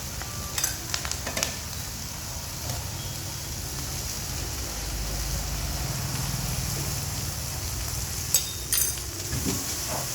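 Yellow noodles stir-frying in a hot pan, sizzling steadily, with a few sharp clicks of the stirring utensil about a second in and again near the end.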